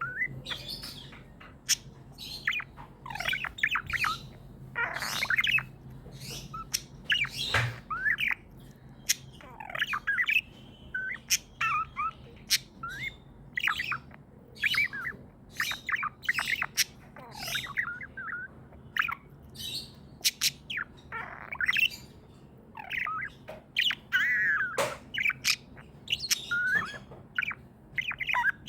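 Pet budgerigars chirping and chattering continuously, a busy stream of short, irregular chirps with occasional harsher squawks.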